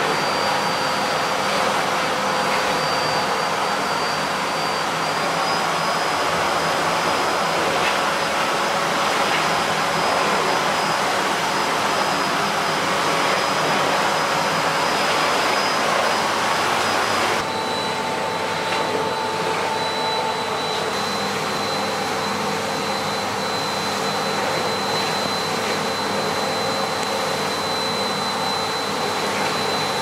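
Bosch BGS21X320 bagless cylinder vacuum cleaner running steadily, a high motor whine over the rush of air as it cleans a hard floor. A little past halfway the whine drops slightly in pitch and the sound gets a touch quieter.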